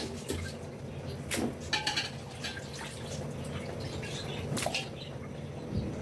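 A handful of short, scattered clinks and knocks of cooking utensils against a cooking pot, over a steady low hum.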